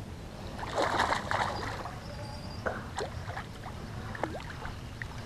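Hooked largemouth bass splashing and thrashing at the water's surface as it is reeled in to the shore. The biggest splashing comes about a second in, followed by a few smaller splashes.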